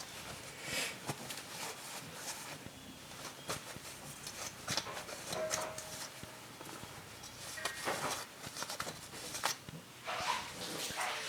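Irregular clinks, knocks and short scrapes of metal parts being handled and worked on, with brief hissy rubbing sounds now and then.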